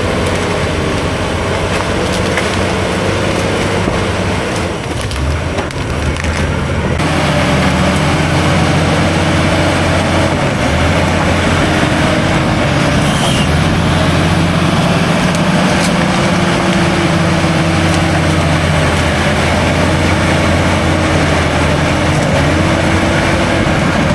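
Diesel engine of a heavy earthmoving machine working under load, its pitch wavering slightly, with wood cracking and splintering as trees and roots are broken during land clearing. The engine dips briefly about five seconds in, then runs steady.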